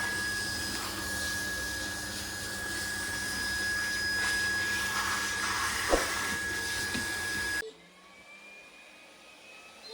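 Electric motor of dog-grooming bath equipment running steadily with a rushing noise and a constant high whine, then switched off suddenly about three-quarters of the way through. A short knock comes just before it stops.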